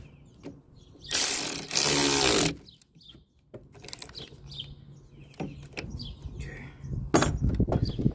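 Ratchet wrench working a bolt in a loud burst of about a second and a half, followed by scattered clicks and knocks of tools and parts.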